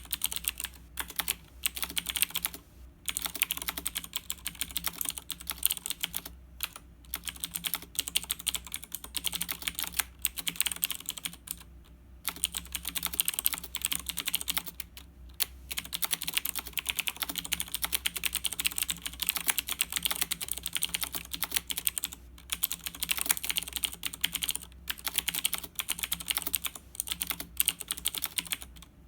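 Fast, continuous typing on a Razer BlackWidow 2013 mechanical keyboard: a rapid stream of key clicks, broken by a few brief pauses.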